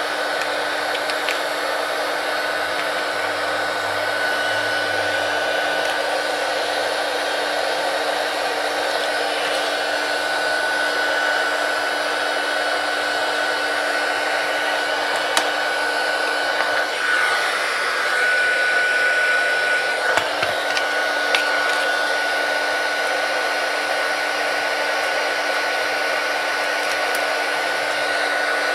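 Hot-air blower running steadily, with a constant whine over the airflow, warming the tablet's glued-in screen so the adhesive softens and the glass can be lifted. A few faint clicks sound around the middle.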